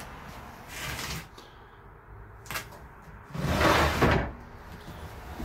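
Plastic milk-crate drawer sliding in its wooden storage cubby: a short scrape about a second in, a click, then a louder scraping rub lasting about a second.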